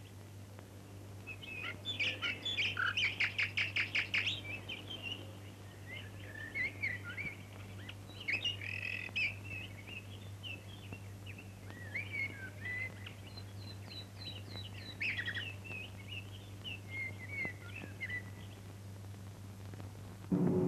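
Songbirds singing: assorted chirps and short phrases, with a fast trill of repeated notes about two seconds in. A steady low hum runs underneath.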